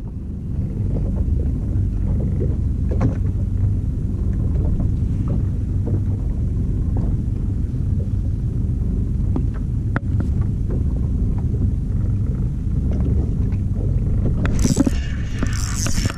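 Steady low rumble aboard a small boat at sea. Near the end, a spinning reel starts a quick rattling as the rod bends under a strong fish.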